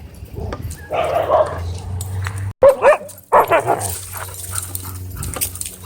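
Dogs barking during rough play-fighting, with the loudest barks about two and a half and three and a half seconds in.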